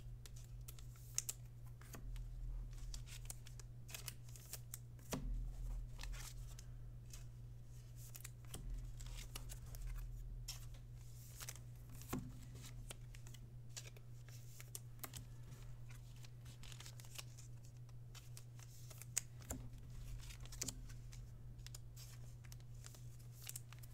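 Faint handling of trading cards and their packaging: scattered light clicks and rustles over a steady low hum.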